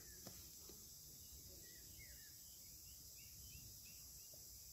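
Near silence: faint outdoor background with a few faint chirps about midway.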